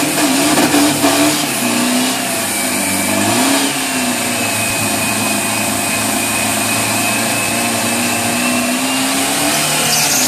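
Drag-racing pickup truck doing a burnout: the engine is held at high revs with the rear tyre spinning in place. The engine note wavers a little up and down over a constant loud hiss.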